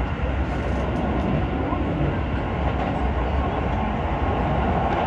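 Train running with a steady, deep rumble and even noise, without pause.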